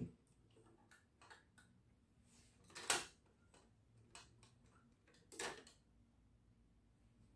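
Plastic Lego parts of a Clone Turbo Tank model clicking and rattling as they are handled and a turret section is pulled off, with a short clatter about three seconds in and another about five and a half seconds in. Faint overall, with a soft thump at the very start.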